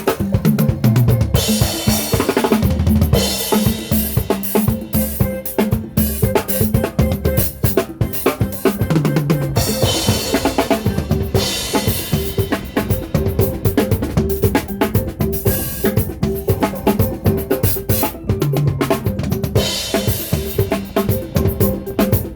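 Live band playing in a sound check, the drum kit out front: a steady run of kick and snare strokes with cymbal crashes every eight seconds or so, over sustained pitched notes from the other instruments.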